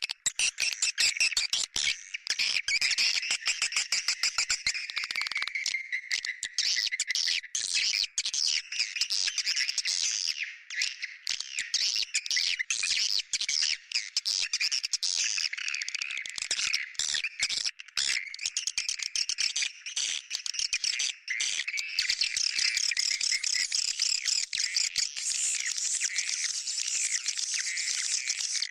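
Swiftlet calling sound (a 'suara panggil' lure track): dense, continuous high-pitched twittering and chirping of swiftlets, many short rapid notes overlapping, as played to draw swiftlets into a bird house.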